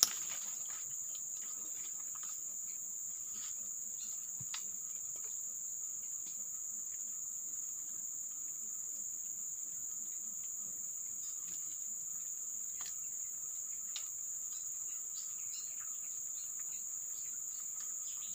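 A steady, high-pitched drone from an insect chorus in riverside forest, unchanging throughout. Scattered faint clicks and rustles from handling, with one sharp click right at the start.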